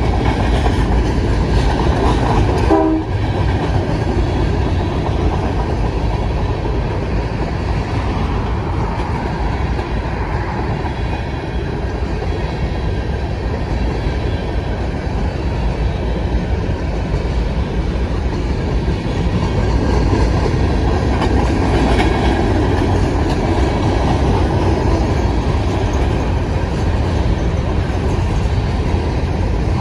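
Covered hopper cars of a BNSF grain train rolling past at close range: a steady rumble of steel wheels on rail.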